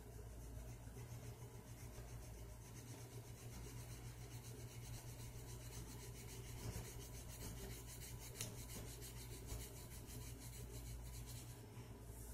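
A colored pencil scribbling on coloring-book paper, faint, in rapid even back-and-forth strokes as an area is filled in.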